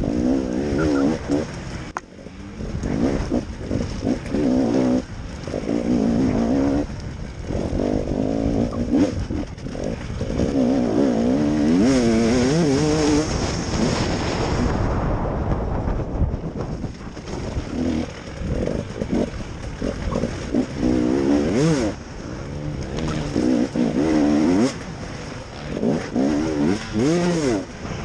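KTM enduro motorcycle engine heard close up from the bike, revving up and down in short bursts as the throttle is opened and shut over rough ground. About halfway there is a longer stretch held at high revs before it backs off.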